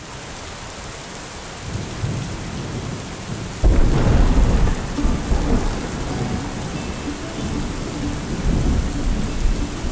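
Steady rain fading in, then a sudden thunderclap about three and a half seconds in, followed by a long low rumble of thunder over the rain.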